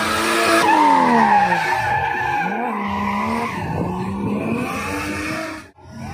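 Drift car sliding, its tyres squealing and skidding while the engine revs fall and then climb again with the throttle. The sound breaks off for an instant near the end.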